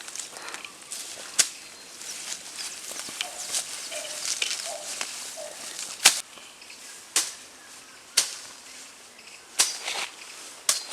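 Footsteps climbing through dry brush: leaves rustling, with sharp snaps of twigs or stems about once a second, most of them in the second half.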